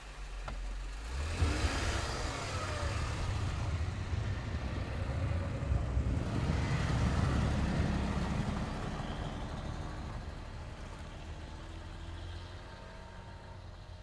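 Jeep Wrangler driving off in snow. The engine and tyre rumble builds over the first few seconds and then fades steadily as it pulls away.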